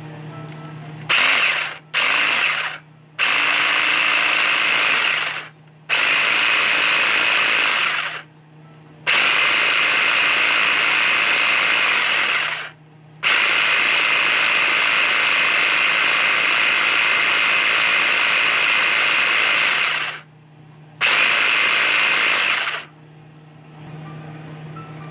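Small electric food chopper running in pulses as it blends a thick sesame dressing of tahini and mayonnaise. Two short bursts come first, then longer runs of two to seven seconds with brief pauses between, seven runs in all.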